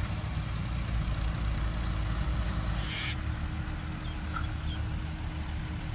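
Wind rumbling unevenly on the microphone over a steady mechanical drone. A brief high call about three seconds in, with faint chirps a little later.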